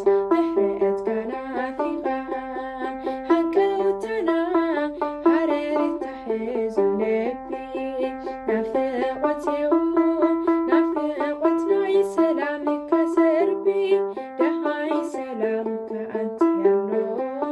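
Ethiopian begena lyre being plucked, playing a stepwise hymn melody with a buzzing, twangy string tone.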